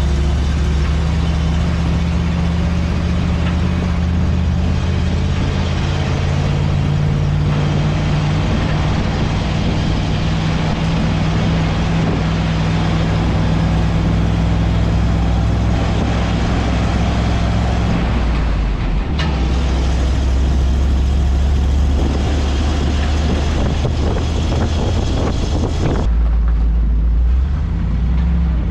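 A heavy vehicle engine running steadily under load, its low drone shifting abruptly about 18 seconds and again about 26 seconds in.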